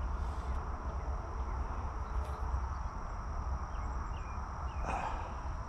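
Outdoor ambience by a lake: a steady high insect drone over a low rumble, with a few short bird chirps a little past the middle.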